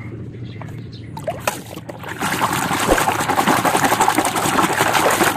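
Water sloshing and splashing as a plastic toy car is swished by hand through foamy water, starting about two seconds in. A few light clicks come before it.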